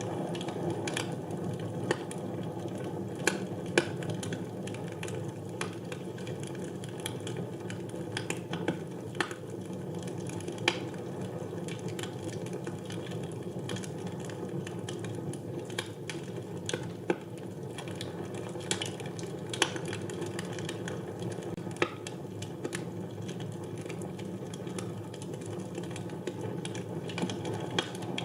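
Wood fire burning in a fireplace: a steady low noise of the flames with irregular sharp crackles and pops, a handful of louder snaps scattered through.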